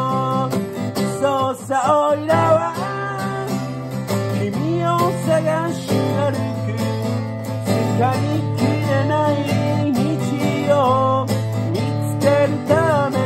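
Acoustic guitar strummed steadily in an instrumental break, with a higher melody line bending in pitch over the chords.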